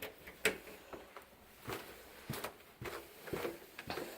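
Footsteps going down stairs: soft, irregularly spaced thuds and taps, about eight of them.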